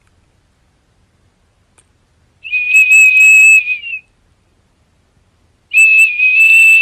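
Small plastic toy whistle in a golden retriever's mouth, sounding as the dog breathes out through it: two long, steady high notes, each about a second and a half, nearly two seconds apart.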